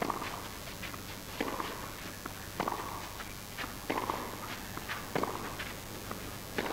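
Tennis rally on a clay court: racket strikes on the ball, one sharp knock about every 1.3 seconds as the players trade shots, each followed by a brief ringing tail.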